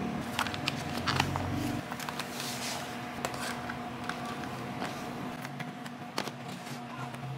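Clear plastic food tubs being handled: lids pressed on and the tubs lifted and stacked, giving a scatter of light plastic clicks and taps, one sharper tap about six seconds in. A low hum stops about two seconds in.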